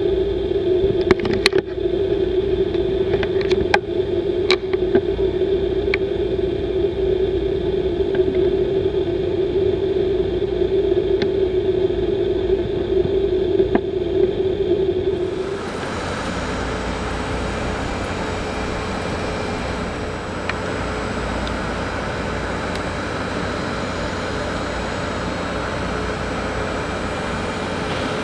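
Airbus A320neo's Pratt & Whitney geared turbofan engines: a steady, pitched engine whine with a few sharp clicks over the first five seconds. About halfway through it switches abruptly to an even, broad jet roar as the engines run at take-off thrust and the aircraft rotates.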